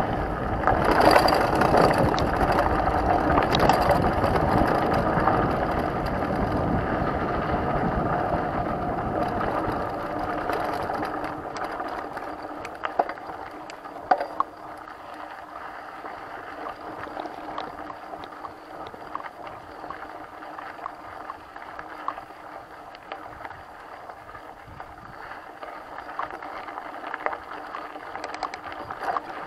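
Mountain bike rolling over a dirt trail: tyre noise and wind buffeting on the microphone, loud for the first ten seconds or so, then quieter, with a few sharp clicks and rattles from the bike.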